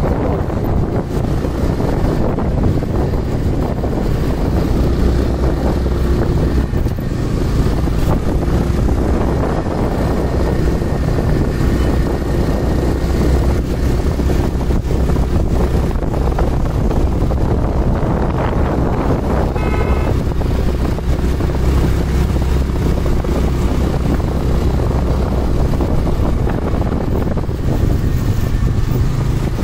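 Steady low rumble of a vehicle driving, with wind buffeting the phone's microphone. A short, high stacked tone sounds briefly about two-thirds of the way through.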